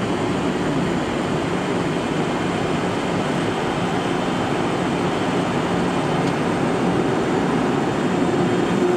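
Steady rush of engine and airflow noise on the flight deck of a Boeing 767-300ER climbing out after takeoff, with a low steady hum underneath.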